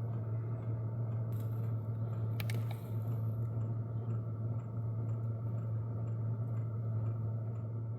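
Diesel tent heater running with a steady low hum and faint, regular ticking about twice a second, with two faint clicks in the first three seconds.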